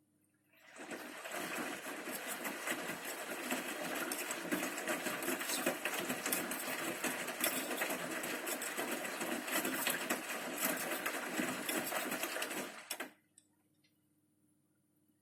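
Bosch Serie 6 front-loading washing machine's drum turning during the main wash, the motor running and the load of clothes and water tumbling for about twelve seconds before the drum stops sharply.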